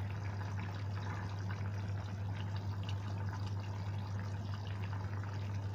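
Beef-and-onion broth bubbling at a simmer in a saucepan, a steady bubbling with a constant low hum underneath.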